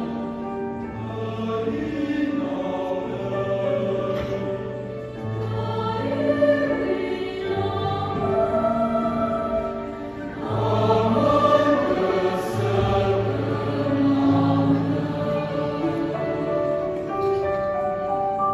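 Large mixed choir of men's and women's voices singing a hymn in Tangkhul in several parts, with long held notes.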